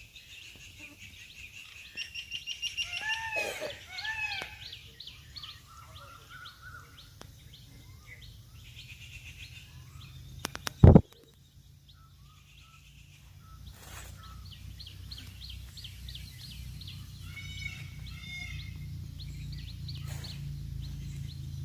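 Wild birds calling: many short repeated chirps with a few louder arched whistled calls. A single sharp knock sounds about eleven seconds in, and a low rumble builds in the second half.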